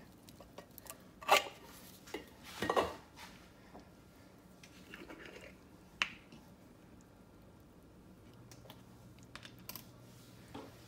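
Metal food can knocking against an enamelled pot as canned corn is tipped in: a sharp knock about a second in, a rougher clatter a moment later, and a single click around six seconds, with little sound between.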